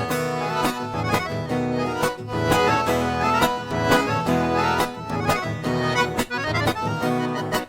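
Accordion playing the instrumental introduction of a gaúcho song in a steady, regular beat, with no singing yet.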